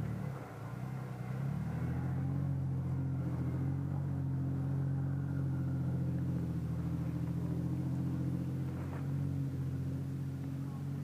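An engine running steadily; its pitch dips and then rises in the first two seconds, then holds.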